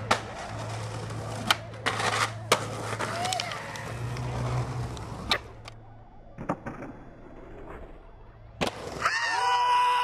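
Skateboard wheels rolling on pavement with a steady low rumble, broken by sharp pops and clacks of the board on tricks and landings, several times over. Near the end a wavering pitched sound comes in.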